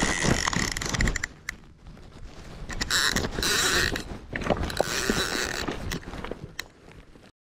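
Conventional fishing reel being cranked against a heavy fish on the line: irregular mechanical clicking and grinding of the reel, mixed with scratchy rubbing of a sleeve against the rod-mounted camera. The sound cuts off suddenly near the end.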